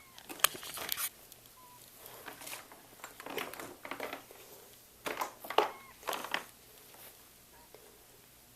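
Irregular plastic clicks, knocks and rustling as the Shark Rotator Lift-Away vacuum is handled, its motor switched off. The sounds come in short clusters over the first six or so seconds.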